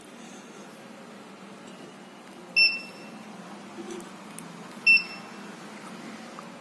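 The game's buzzer gives two short high beeps, about two seconds apart. Each beep signals a wrong answer, a hand placed over the wrong sensor.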